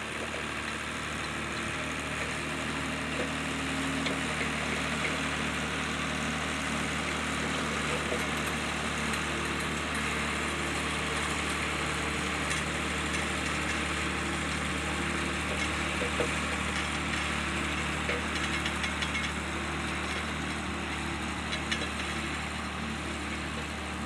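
1988 David Brown 1594 tractor's diesel engine running steadily under load while pulling a plough through the soil.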